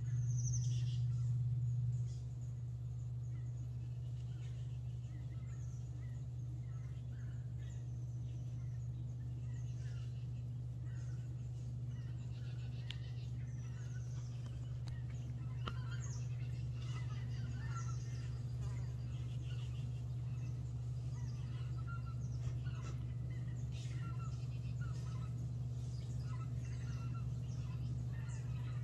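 Scattered bird calls over a steady low hum that is louder for the first two seconds.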